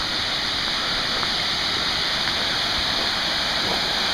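Steady rushing of a waterfall, a constant hiss of falling water.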